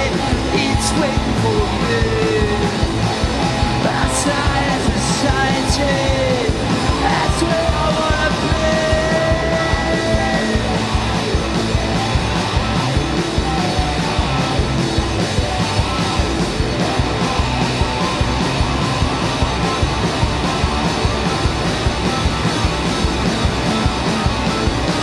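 Live rock band playing loudly: electric guitars, bass and drums, with shouted singing over roughly the first ten seconds, then instrumental playing.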